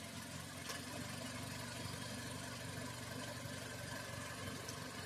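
Car engine idling steadily while it warms up to operating temperature, with a single sharp click under a second in.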